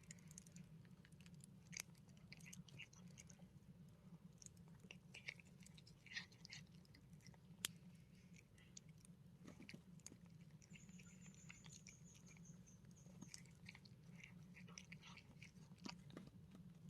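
Faint, scattered chewing and crunching of an animal eating, with soft irregular clicks and one sharper click about seven and a half seconds in.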